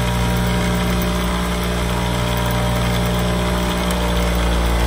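Bench buffer motor running steadily with a cloth buffing wheel spinning, a constant hum, while a polymer Glock 19 frame is polished on the wheel.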